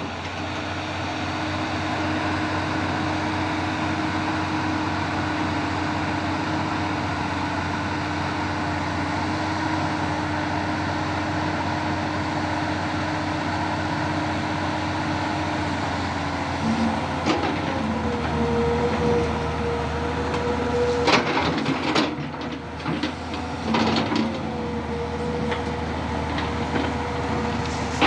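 Tata Hitachi 200 Super hydraulic excavator running: a steady diesel engine drone with a held tone. In the last third the tone steps up in pitch, and several sharp knocks and clanks come from the working machine.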